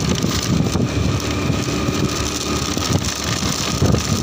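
Motorcycle engine running steadily while riding along at a constant speed, with wind noise on the microphone.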